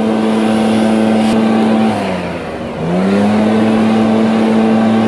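Gas-powered backpack leaf blower running at full throttle with a steady engine whine. About two seconds in the throttle is let off and the pitch falls, then it revs back up a second later and holds at full speed.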